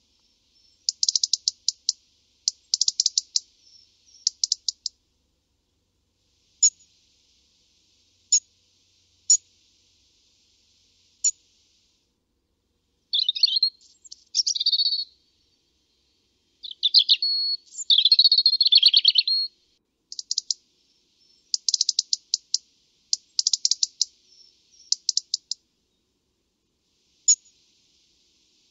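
European robin vocalizing: quick runs of sharp, high ticking notes, single ticks every second or two, and two short warbling song phrases in the middle.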